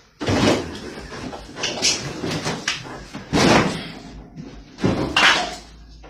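Refrigerator doors being yanked and banged, several loud bangs and rattles in a row, the loudest about three and a half seconds in.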